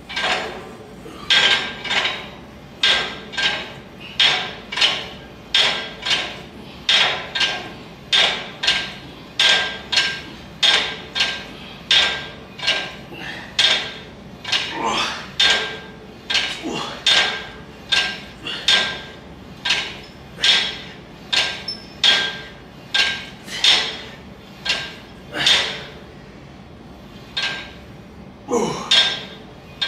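Iron weight plates on a plate-loaded cable pulley clanking with each rep of V-handle tricep pushdowns, a ringing metal clank about once a second that stops a few seconds before the end.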